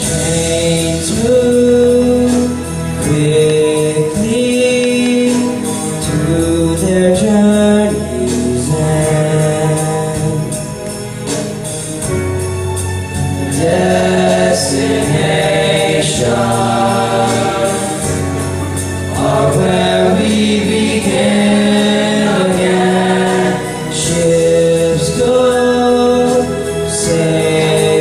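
A boy soloist singing into a microphone, holding long notes over a musical accompaniment.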